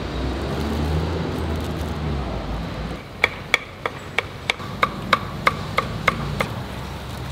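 Meat cleaver chopping fried meat on a thick round wooden chopping block: about eleven quick strikes, roughly three a second, each with a short metallic ring, starting about three seconds in after steady low background noise.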